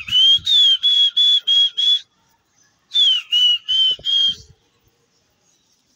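A pigeon keeper whistling at his flock in the air: a quick run of about seven short, shrill whistle blasts, a pause of about a second, then four or five more.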